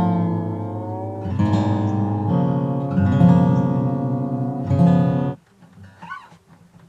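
Steel-string acoustic guitar strummed, ringing chords changing every second or so, which stop abruptly about five seconds in; fainter, wavering notes follow.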